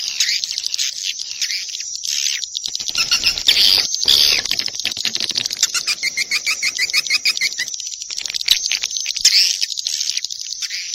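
Swiftlet lure call recording: a dense high twittering chatter of swiftlet chirps and quick clicks. About six seconds in comes a fast, even run of repeated chirps, some eight a second. This is a call track played in swiftlet houses to attract the birds.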